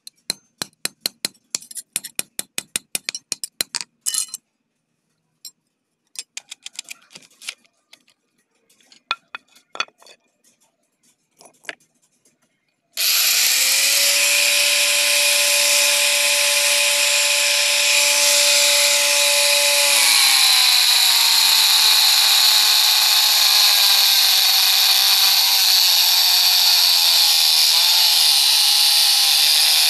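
Rapid metallic clicking and clinking from a knife blade and its metal fitting on a steel block, then scattered clicks. About 13 seconds in, an angle grinder with a cutting disc starts abruptly and runs steadily, its pitch dropping about 20 seconds in as the disc bears on a wooden plank.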